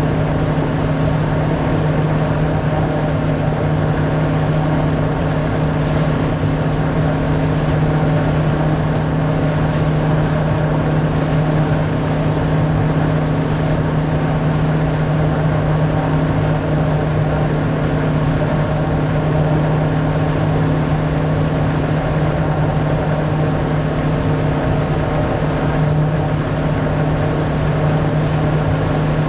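MB Sports F21 Tomcat wake boat's inboard engine running at a steady speed, a constant low hum over the rush of its churning wake.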